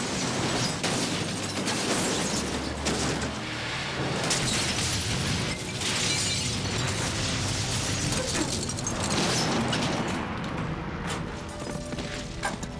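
Film sound effects of a vehicle crash and explosion: a dense, continuous din of crashing metal and shattering glass, with repeated sharp impacts and a blast.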